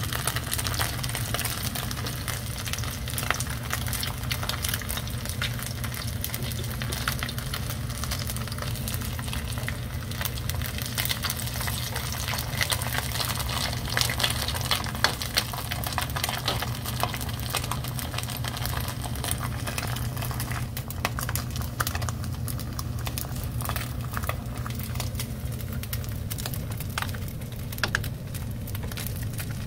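Pieces of houseki kintoki fish deep-frying in a wok of hot oil: a dense, steady sizzle full of small crackling pops, busiest mid-way and easing a little near the end. A low steady hum runs beneath it.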